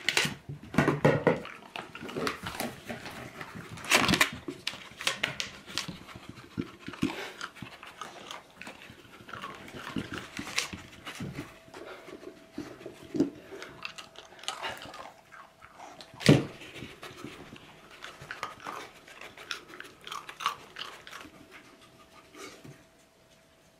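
Beagles nosing and pawing a plastic bucket on a rug: irregular knocks, bumps and scrapes of the plastic, with the loudest knock about two-thirds of the way through. Dog biscuits being chewed in between.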